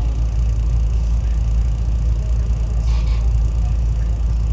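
SEPTA regional rail car rolling along the track, heard from inside the passenger car: a steady, heavy low rumble, with a brief higher-pitched noise about three seconds in.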